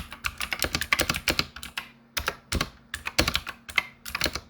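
Typing on a VX Gaming Warborn mechanical keyboard: a fast, uneven run of sharp key clicks, with a short pause about two seconds in.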